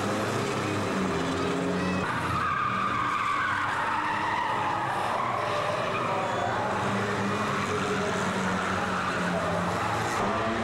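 Banger racing cars' engines running hard on a short oval, with tyres squealing in a wavering tone for several seconds from about two seconds in as a car slides and spins.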